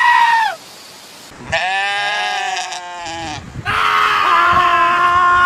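Sheep bleating: three long calls in a row, the last the longest and loudest, running from about four seconds in to the end.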